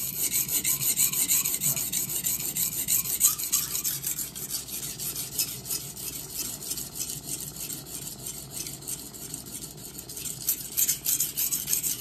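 Stainless-steel santoku blade (Victorinox Grand Maitre) being stroked rapidly back and forth on a 400-grit vitrified diamond whetstone: a continuous gritty, rasping scrape made of many quick strokes. The edge bevel is being set at about 17 to 18 degrees on the coarse stone.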